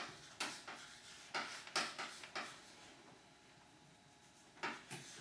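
Chalk writing on a blackboard: a run of short, sharp scratches and taps as a word is written, then a quiet pause and one more stroke near the end.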